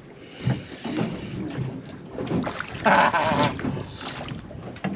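Fishing reel being wound in as a mackerel is brought up, over the knocking and splashing of water against a small boat's hull and wind on the microphone. A brief, loud wavering tone sounds about three seconds in.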